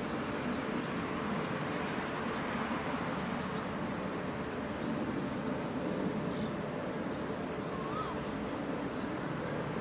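Alstom diesel-electric locomotive idling at a distance, a steady low rumble, with a faint bird chirp about eight seconds in.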